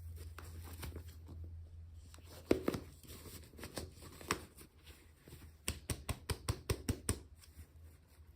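Hands handling small plastic toy packaging during an unboxing: scattered clicks and taps, one louder click, then a quick run of sharp clicks, about six a second, near the end, over a steady low hum.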